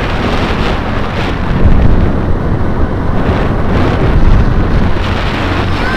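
Heavy wind buffeting the microphone over the steady running and road noise of a vehicle moving at speed.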